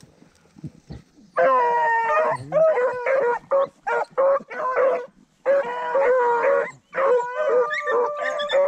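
Beagles baying: a string of pitched, drawn-out yelps starting about a second and a half in, with short breaks between runs. This is the cry rabbit hounds give while on a rabbit's scent.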